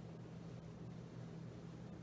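Quiet room tone with a faint steady low hum.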